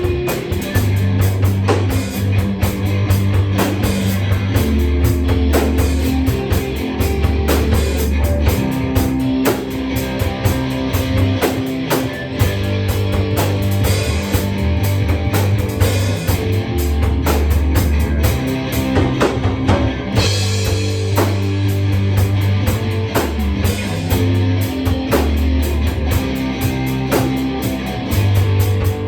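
Rock music with electric guitar, bass and a drum kit playing steadily.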